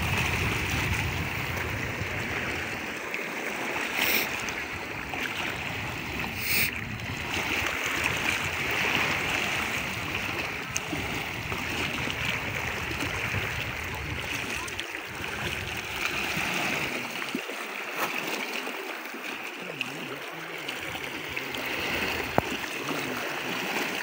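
Small wind-driven lake waves lapping and splashing against a rocky, gravelly shoreline: a steady wash of moving water, with a couple of sharp little splashes in the first few seconds.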